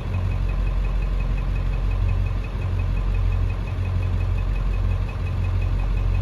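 7.3-litre Power Stroke V8 diesel idling steadily with a deep, even hum. A faint, fast, regular high ticking runs over it.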